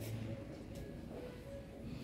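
Quiet background music with held tones and a pulsing bass line.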